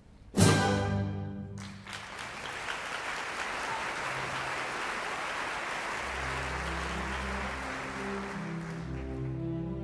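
An orchestra strikes a loud closing chord about half a second in, and the audience breaks into steady applause. A few seconds later, low strings begin playing again under the applause.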